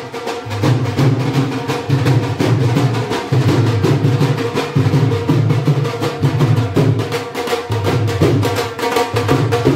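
Dhol barrel drum beaten in a fast, steady rhythm of sharp strokes over deep bass beats.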